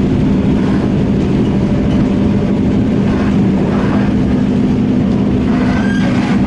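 Cabin noise of a Hyundai Rotem-built MTR K-train electric multiple unit running at speed: steady rumble of wheels on rail with a steady low hum. A brief higher tone sounds near the end.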